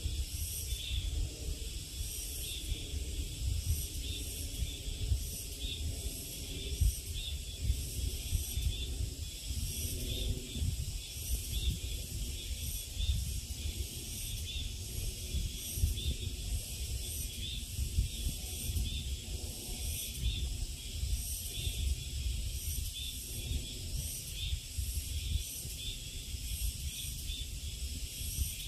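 A steady chorus of insects calling, a high buzz that pulses over and over, over a low rumble of wind on the microphone.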